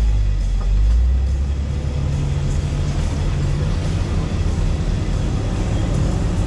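Jeep engine running at low revs during slow rock crawling: a steady low rumble, a little louder in the first second.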